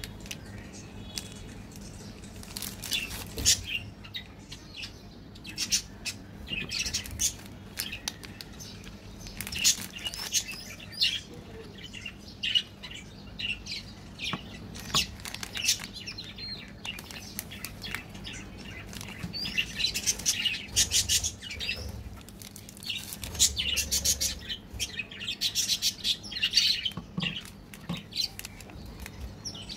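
Plastic and foil candy-bar wrappers crinkling and rustling as they are handled and torn open, in irregular bursts of crackle.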